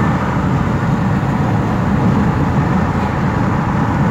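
Steady road noise of a car cruising on a highway, heard from inside the cabin: a low, even hum of tyres and engine.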